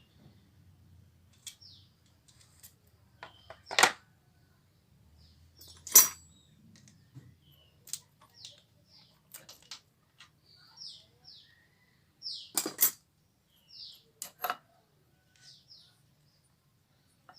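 Metal tools and engine parts clinking and knocking now and then during work on a dismantled Yamaha Vega ZR engine, about five sharp clinks spread out with pauses between. Birds chirp faintly in the background.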